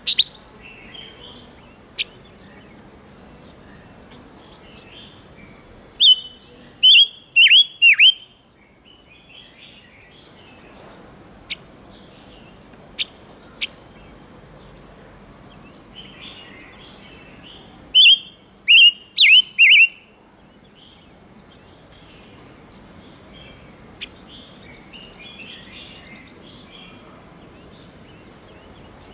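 Chim ngũ sắc songbird calling as a decoy call: two loud bursts of about five sharp whistled notes each, the first about six seconds in and the second about eighteen seconds in, with soft chattering notes and a few single chips in between.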